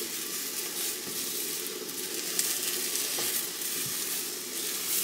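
Thin pancake sizzling in a non-stick frying pan while it is rolled up with wooden spatulas. A steady frying hiss runs throughout, with a few light taps of the spatulas against the pan.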